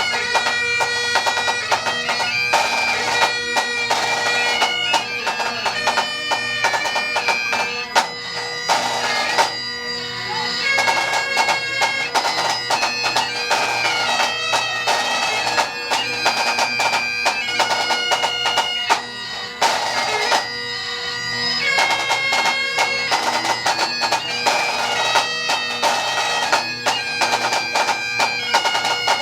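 Pipe and drum band playing: bagpipes carry a melody over a steady drone, with drums beating along.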